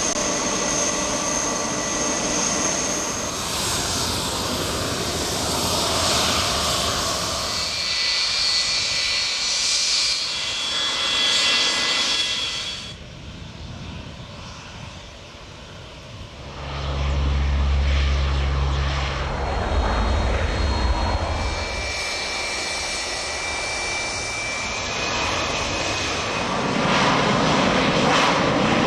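Jet airliner engines running on the runway, a steady jet roar with a high turbine whine. It changes abruptly several times where the footage cuts between aircraft, with a quieter stretch partway through followed by a deep low rumble.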